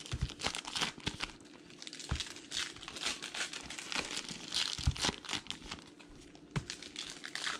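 Plastic trading-card pack wrapper crinkling and tearing as a Topps pack is opened and its cards handled, with a few short soft knocks, the loudest about five seconds in.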